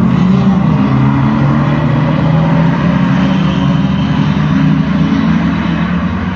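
Speedway sedan race car engines running at speed on a dirt track: a loud, unbroken engine sound whose pitch wavers slightly.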